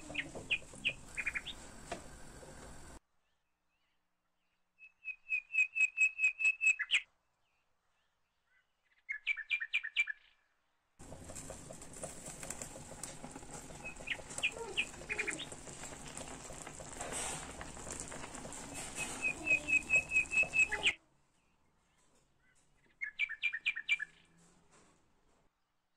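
A small bird chirping in quick, evenly repeated trills, about six short bursts a few seconds apart, some over a steady background hiss and some in quiet gaps.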